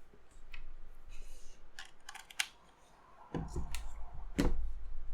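Scattered sharp clicks and knocks from a mechanical keyboard being handled, with a few low thumps in the second half as it is moved on the desk.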